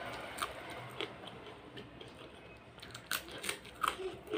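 A person chewing a mouthful of food close to the microphone: soft crunches and wet mouth clicks, a few scattered at first, then a quick run of them in the last second or so.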